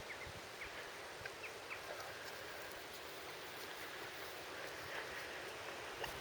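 Faint outdoor countryside ambience: a steady rustling hiss with a few short, faint bird chirps scattered through.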